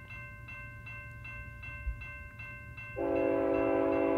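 Locomotive air horn on a BNSF GE ET44C4 freight engine sounds one loud chord blast about three seconds in. Background music with a steady pulse plays under it.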